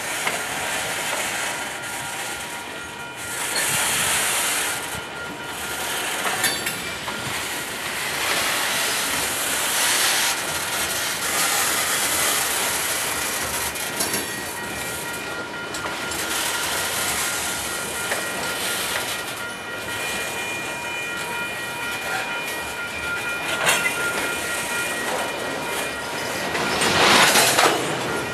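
Union Pacific freight cars rolling past during switching, steel wheels clattering on the rails, with a thin steady high squeal running through much of it.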